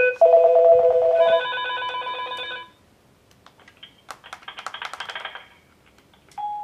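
FERMAX DUOX video intercom call tones: a keypad beep from the entrance panel, then a loud two-note electronic ring followed by a higher chime as monitor 5 is called. A quieter buzzing ring with clicks follows about four seconds in, and a steady single beep starts near the end.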